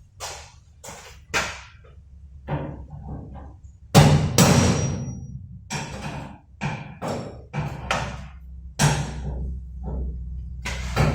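A series of irregular metal knocks and blows on a locked toolbox being forced open. Two heavy blows, about 4 s and 9 s in, stand out, and the first has a short metallic ring after it.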